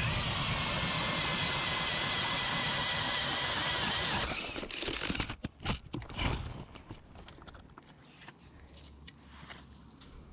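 Power ice auger drilling a hole through thick lake ice: a loud, steady motor whine that cuts off about four seconds in. A few knocks and scrapes follow, likely the auger being lifted out and ice being cleared.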